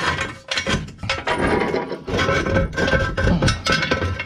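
Steel ratcheting jack stand being handled and set: a quick series of metal clanks, rattles and ratchet clicks as its toothed column is pulled up.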